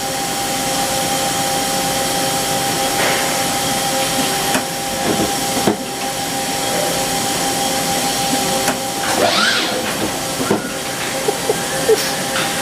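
Mori Seiki MT-1500SZ CNC lathe running with a steady hiss and hum as its axes are moved; part of the hum cuts out about nine seconds in, and a few short squeaks follow.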